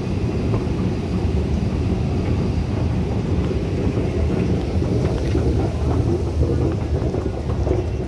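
Steady low rumble of a moving escalator in an Underground station, with faint scattered ticks.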